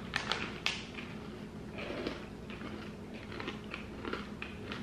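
Scattered light crinkles and crunches: a printed snack bag being handled and crunchy chocolate clusters with peppermint candy and cookie bits being chewed.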